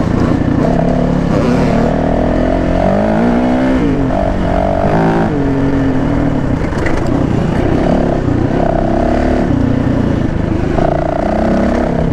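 2017 Yamaha WR450F dirt bike's single-cylinder four-stroke engine under way, its revs rising and falling repeatedly with the throttle and gear changes.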